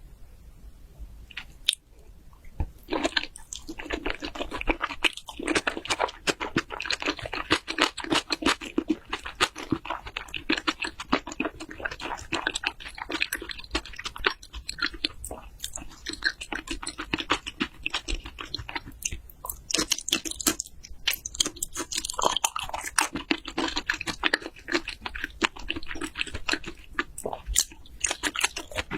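Close-miked chewing of raw salmon and shrimp: a dense run of quick mouth clicks and chewing noises, starting about three seconds in.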